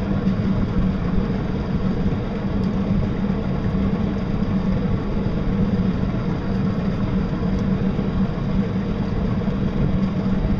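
Small battery-electric boat running under way at low power: a steady, even drone with the rush of water and air around the hull.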